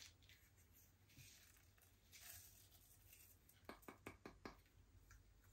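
Faint sounds of slime being mixed: a soft sticky hiss, then a quick run of about six small clicks or pops a little past the middle.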